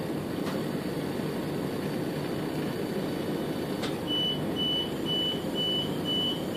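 Inside a train at a station, a steady cabin hum runs throughout. A click comes just before four seconds in, and then the door warning beeps start: a steady high beep repeated about twice a second.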